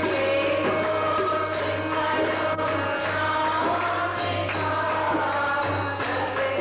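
Devotional bhajan music: a harmonium holds and moves through the melody over a steady percussion beat.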